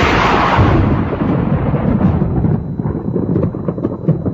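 A thunderclap: a sudden loud crack whose hiss fades over about two seconds, leaving a long low rolling rumble.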